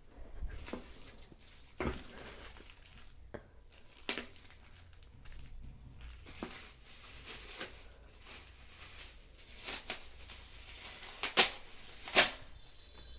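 Packaging being crinkled and torn open as a tripod is unboxed, with scattered clicks and two sharp snaps near the end.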